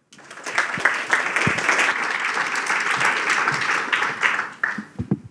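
Audience applauding, thinning out about five seconds in with a few last claps.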